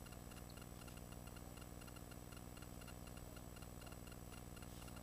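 Near silence: a faint steady hum with a soft, regular ticking in the background.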